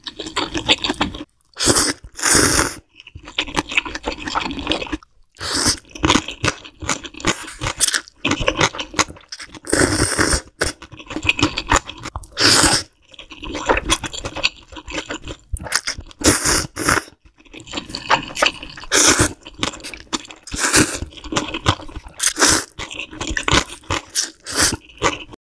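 Close-miked slurping and chewing of instant ramen noodles in spicy soup, in quick irregular bursts with short pauses between mouthfuls.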